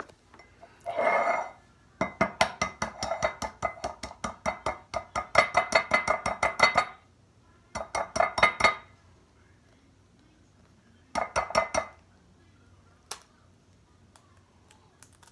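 An egg tapped against the rim of a ceramic mug to crack it, each tap a ringing clink from the mug. The taps come in quick runs, several a second, a long run of about five seconds first, then shorter runs and a couple of single taps.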